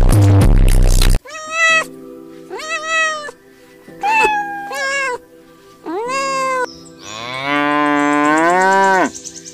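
A loud music sting cuts off about a second in. A kitten then meows five times, and a cow follows with one long moo that rises in pitch and drops away at the end. A soft music bed plays underneath.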